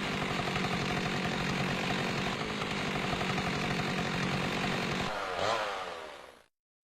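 Chainsaw engine running at high revs, its pitch shifting briefly about five seconds in, then fading out.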